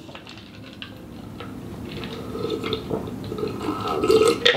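A person drinking from a cup: liquid and swallowing sounds that grow louder toward the end.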